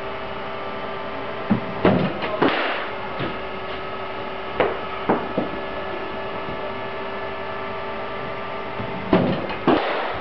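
Sharp knocks of a cricket ball on the bat and against the surrounds of an indoor practice net, in two clusters about two seconds in and again near the end, with a couple of lighter knocks between. A steady hum with a few held tones runs underneath.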